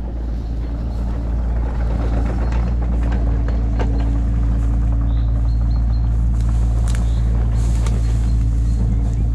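Excavator's diesel engine idling, a steady low hum, with grass swishing against the walker's legs and a few light clicks.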